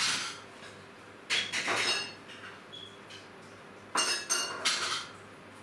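Crockery and glassware clinking and knocking together as dishes are washed up by hand, in three short flurries of a few clinks each, some ringing briefly.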